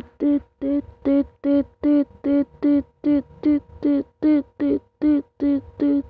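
Toy dump truck's electronic sound unit beeping: short, identical warbling beeps repeating evenly, about three a second.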